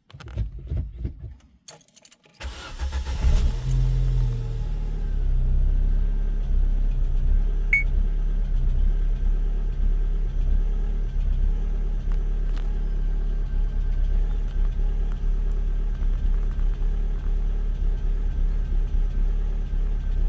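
Opel Astra G's 1.6 Z16XE four-cylinder petrol engine being cranked and catching about two seconds in. It runs a little higher for a couple of seconds, then settles to a steady idle that the owner suspects is rough from a possible misfire.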